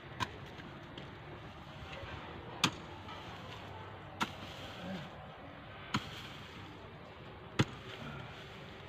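Long-handled hoe chopping into a heap of dry earth and rubbish: five sharp strikes, one about every one and a half to two seconds, over a faint steady hiss.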